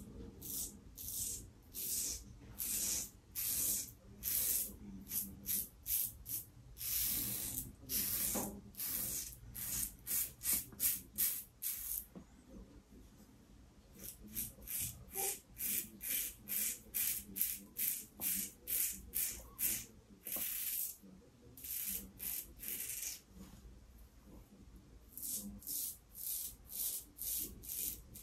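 Safety razor with a hybrid Yaqi-cap, Fatip closed-comb head and an Astra Stainless blade scraping stubble through lather across the grain, in quick runs of short strokes. The strokes pause for about two seconds around twelve seconds in.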